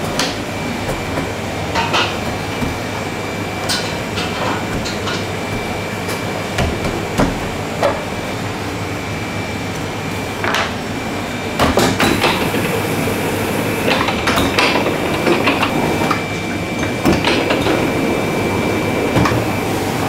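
A CMBP bakery dough sheeter running with a steady hum and thin whine, with scattered knocks and thuds as laminated croissant dough is handled and folded on its belt; the machine noise grows louder about halfway through.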